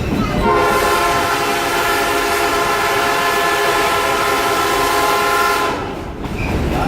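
Train horn blowing one long, steady multi-note chord, heard from aboard the train. It starts about half a second in and cuts off near the end. A long blast of the kind sounded as the train nears a road crossing.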